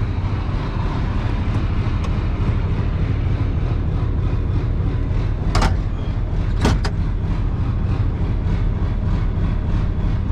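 Old farm tractor engine running steadily, with two brief sharp sounds about five and a half and six and a half seconds in.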